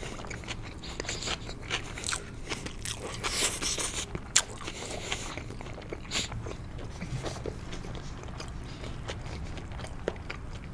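Close-miked eating of sushi: chewing with sharp, wet mouth clicks, busy for the first few seconds, then sparser.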